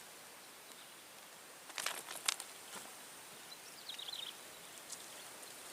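Faint swamp ambience: a few brief rustles about two seconds in, and a short twittering bird call about four seconds in.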